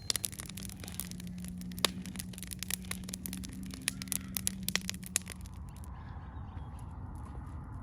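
Wood campfire crackling with many sharp snaps over a low steady hum. About six seconds in it cuts off abruptly to a quieter background.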